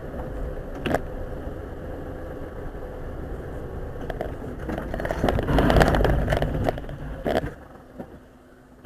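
Steady road and engine rumble of a moving car, with a knock about a second in and a louder burst of clattering and scraping from about four to seven seconds in.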